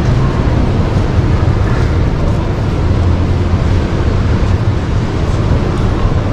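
Steady low rumble and hiss of a large exhibition hall's background ambience, with a few faint clicks scattered through it.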